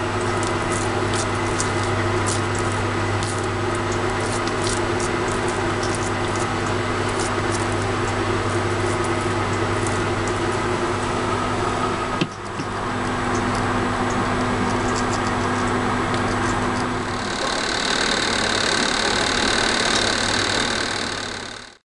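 Steady machine hum, as of a kitchen appliance running, with small clicks and squishes from hands patting and shaping soft cookie dough. Near the end the hum gives way to a brighter hiss with a high steady whine.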